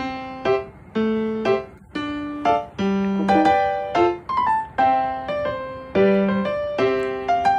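Background music: a light keyboard melody played note by note, about two notes a second, each note struck and left to fade.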